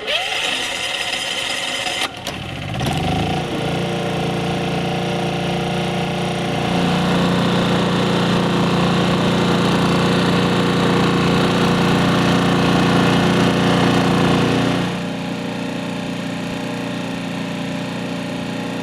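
Yamaha 3,000-watt inverter generator started on its electric starter: a couple of seconds of cranking, then the engine catches and rises in pitch and settles into a steady run with economy mode off. About fifteen seconds in, the sound drops to a lower, steady hum.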